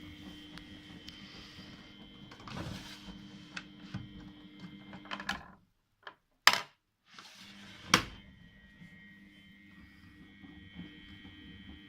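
Miele Novotronic W907 washing machine running a boil-wash cycle, a steady motor hum with a faint whine and occasional clicks. About halfway through the sound drops out for over a second. Two sharp clicks come one either side of the gap.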